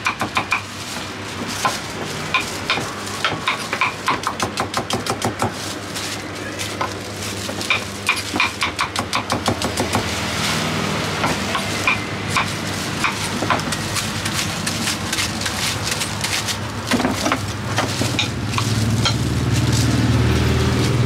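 Quick runs of knife chops on a round wooden chopping block, as a crinkle-cut knife slices green fruit, about six sharp knocks a second with short pauses between runs. A low engine-like hum underneath grows louder near the end.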